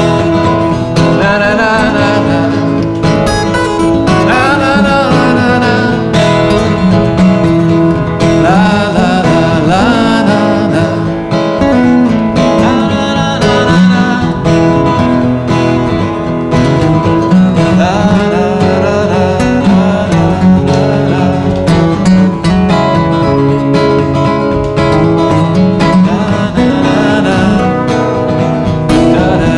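Two steel-string acoustic guitars playing together, a picked melody with sliding notes over chords.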